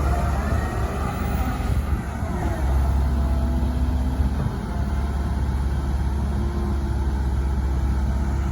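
Diesel engine of a Komatsu PC130 hydraulic excavator running steadily with a deep, low drone while it works.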